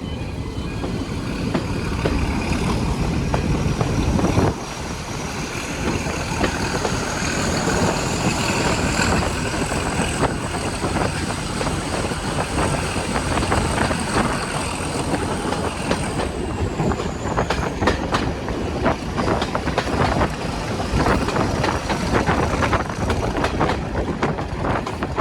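A locomotive-hauled train running past. The level drops suddenly about four seconds in. A high whine rises, holds steady, then falls away about two-thirds of the way through, followed by a quick clatter of wheels over rail joints.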